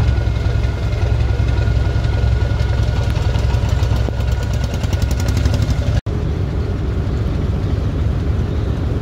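Fishing boat's diesel engine running with a steady low drone, with a fast light ticking for a few seconds in the middle. A little after halfway the sound breaks off for an instant and resumes as the engine drone of the boat under way on the river.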